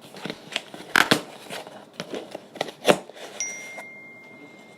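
Cardboard shipping box being opened and its contents handled: rustling with several sharp knocks and taps, the loudest about a second in and again near three seconds in.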